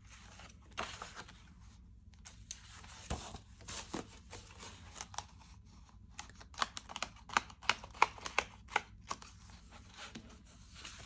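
Paper pages and inserted sheets of a disc-bound planner being turned and handled: soft rustling with crisp clicks and taps, which come in a quick run a little past the middle.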